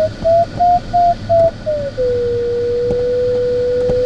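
Glider audio variometer beeping in short pulses, about two or three a second, its pitch wavering slightly. About two seconds in it drops to a single steady lower tone: the vario signalling weak lift, then sink.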